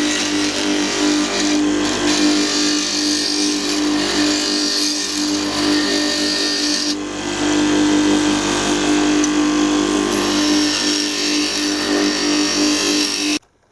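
Bench grinder running with a steady hum while a high-speed steel tool blank is ground to a radius against its stone, a continuous hissing grind over the motor's tone. The sound stops abruptly near the end.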